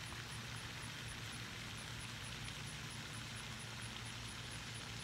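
Steady outdoor background noise: a low hum under a soft hiss, with a faint high ticking that repeats evenly throughout.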